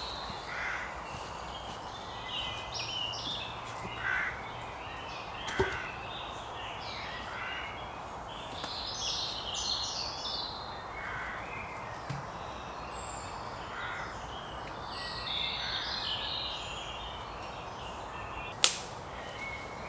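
Woodland songbirds chirping and singing. There are two sharp knocks from logs being handled, one about five and a half seconds in and a louder one near the end.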